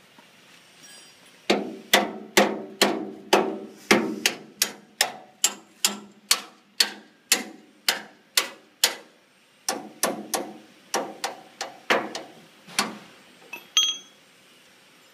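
Hand hammer striking metal on the harvester's engine mount, about two to three blows a second with a short ring after each, pausing briefly about nine seconds in. A lighter metallic clink follows near the end.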